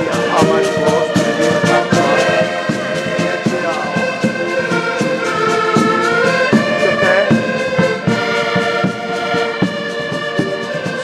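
Live band music with brass instruments playing a sustained melody over a steady drum beat.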